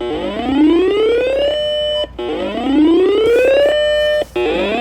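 Repeating siren-style alert tone: each whoop glides steadily upward for about a second and a half, holds briefly at the top and cuts off, starting again about every two seconds, a little over two times in all.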